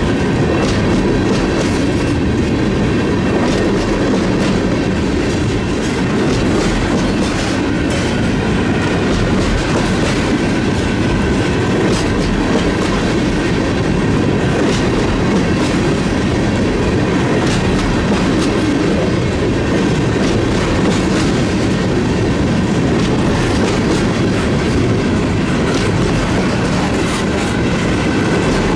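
Empty tank cars of a freight train rolling past close by: a steady rumble of steel wheels on the rails, with scattered clicks as the wheelsets pass over rail joints.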